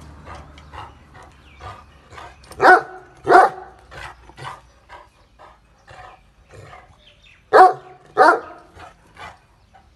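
Bully-breed dog barking in two pairs of loud barks, one pair about three seconds in and another near the end.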